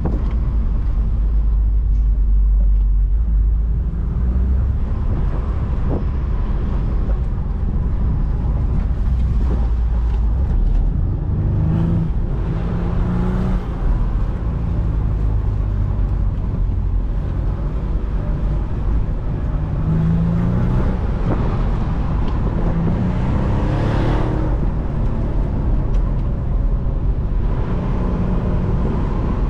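BMW Z4 on the move, heard from on board: a steady low rumble of engine and road noise, with the engine note rising and falling several times as the car accelerates and eases off.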